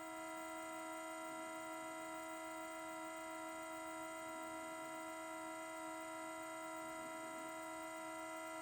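A steady, high-pitched electrical-sounding hum with several pitched tones, coming from a parked car whose engine is off, a noise that shows up only in cold weather and that others have told the owner has something to do with the exhaust.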